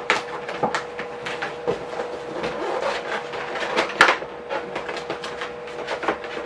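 Paper rustling and crinkling in quick irregular crackles as sheets of white wrapping paper are handled and pulled out of a gift package, over a steady faint hum.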